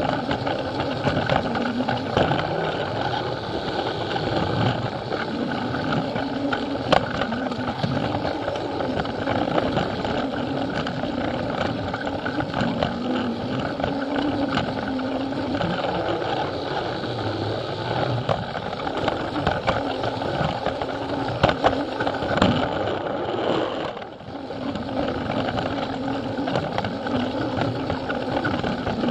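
Plarail toy train's small battery motor running, its plastic wheels rattling and clicking over the plastic track, heard from a camera riding on the train. The level dips briefly about 24 seconds in.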